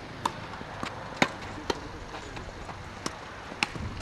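Tennis rally: sharp pops of the ball on racket strings and on the court surface, about six in all at uneven intervals, the loudest about a second in.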